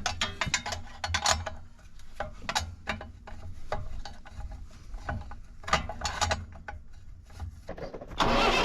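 Short spells of quick metallic ratchet clicking from a hand ratchet working a hydraulic hose fitting on a tractor. About eight seconds in, the tractor's engine starts and runs.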